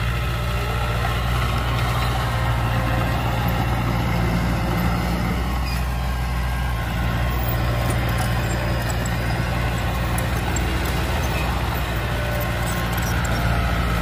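Diesel engine of a small crawler bulldozer, a Komatsu D20P, running steadily and evenly while the dozer pushes and spreads dirt with its blade.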